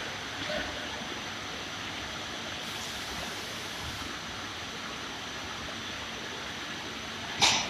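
PROSAW 460 log-to-beam sawing machine running: a steady, even mechanical rush of noise. Near the end comes a sudden loud swishing noise.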